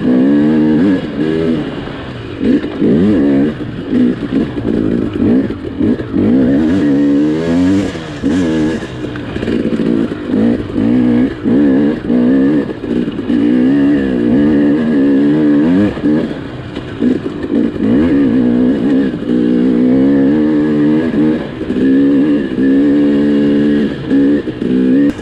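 Dirt bike engine revving up and down as it is ridden along a trail, the throttle opened and rolled off again every second or so, so the pitch keeps rising and falling.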